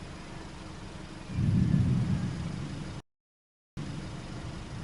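Steady engine and road hum heard inside a vehicle. Just over a second in it swells into a louder low rumble for about two seconds. The sound then cuts out completely for under a second before the hum returns.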